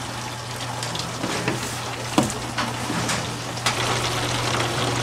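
Apple cider pouring from a filling machine's spouts into plastic gallon jugs, a steady splashing hiss over a steady low hum, with a few sharp knocks.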